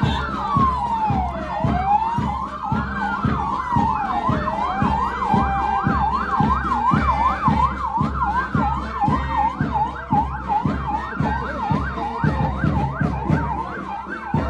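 Electronic siren on a highway patrol police vehicle, sounding a slow wail that rises and falls about every second and a half, then switching about five seconds in to a fast yelp of several sweeps a second. A regular low pulsing runs underneath.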